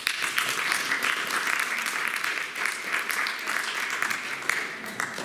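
Audience applauding, starting suddenly and tailing off near the end.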